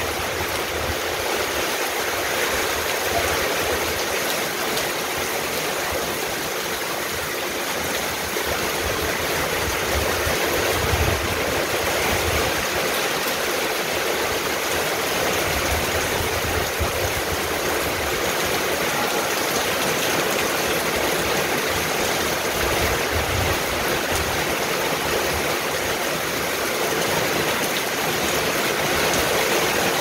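Heavy rain falling steadily on garden plants, roofs and paving: a dense, even hiss with no letup.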